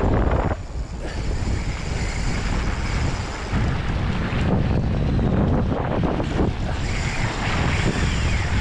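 Wind buffeting the microphone in a steady, loud rush, with small waves lapping at the shore.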